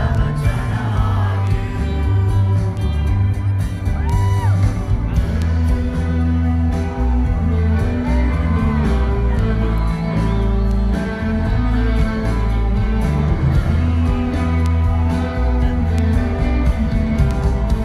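Rock band playing live through a PA, heard from within the audience: electric guitars, bass and drums with a male singer.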